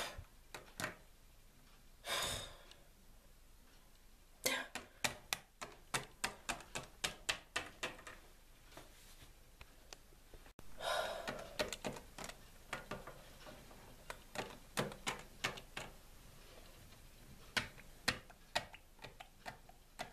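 Small plastic Littlest Pet Shop figurines tapped against a ceramic sink in quick runs of light clicks, about three to four a second, as if walking. A short rushing, breathy noise comes about two seconds in and another near the middle.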